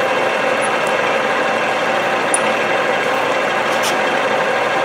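Ajax milling machine running, its end mill cutting metal to mill out a circle of about 2.5 inches: a steady machining whir, with a faint click a little before the end.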